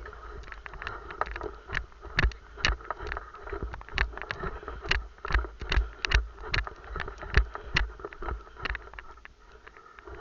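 Airsoft guns firing in an exchange of shots: irregular sharp cracks and clicks, several a second, some louder and some fainter, over a constant hiss of background noise.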